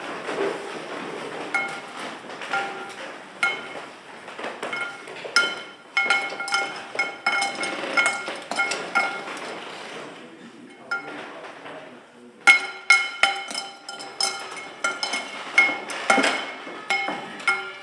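Irregular clinking strikes on a small bell-like object, each ringing briefly with the same set of high tones, often more than one a second. They thin out for about two seconds past the middle, then come back faster.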